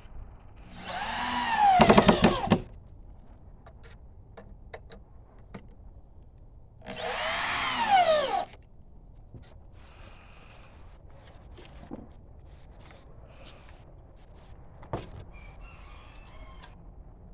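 Power drill driving wood screws into a 2x12 board: two runs of a second or two each, the motor's whine climbing and then dropping as the screw seats. Light clicks and knocks of handling follow.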